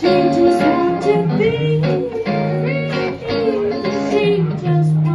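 Pop song music played on guitar, with some wordless singing.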